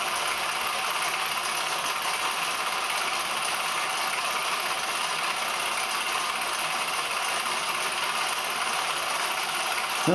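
Clydon 13/4 toy live-steam engine running steadily, a continuous even mechanical rattle.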